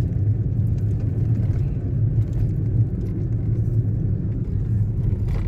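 Steady low rumble of a car driving, heard from inside the cabin: engine and tyre road noise.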